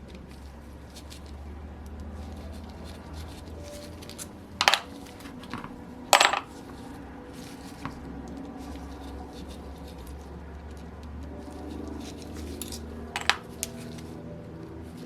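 Small metal engine parts and hand tools clinking against each other and the bench during disassembly. There are three sharp clinks, about five, six and thirteen seconds in, with lighter ticks between, over a steady low hum.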